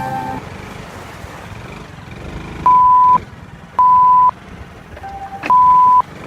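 A loud pure-tone beep at a single pitch sounds three times, each about half a second long, at uneven gaps starting about three seconds in, typical of a censor bleep tone. Between the beeps there is only a low background rumble.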